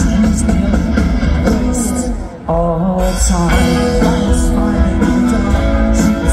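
Live rock band playing through a festival PA, heard from within the crowd: heavy bass and guitar. The music dips briefly a little over two seconds in and comes straight back in.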